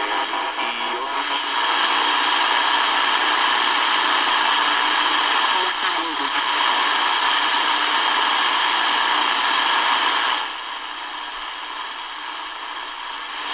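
Tecsun DR-920C portable radio's speaker on shortwave around 7 MHz while being tuned down the band. A faint broadcast voice at first gives way, about a second in, to loud static hiss, with a falling whistle about midway as the dial passes a signal. The hiss drops back about ten seconds in.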